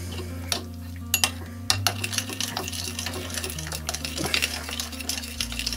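A spoon stirring chopped raw chicken in a wet soy-sauce marinade in a ceramic bowl: quick, irregular clinks and scrapes against the bowl, with a squelch of the sauce.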